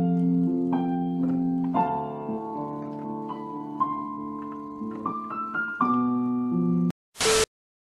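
Electronic keyboard played with a piano sound: slow held chords with a melody moving above them, cutting off abruptly about seven seconds in. A brief burst of noise follows just after.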